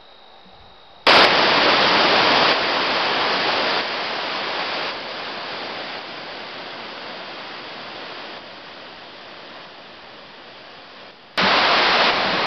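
Waterfall: whitewater pouring over rock ledges makes a steady rushing noise. It starts suddenly about a second in, drops in loudness in several steps, and cuts off abruptly near the end, where a new loud rush of water starts.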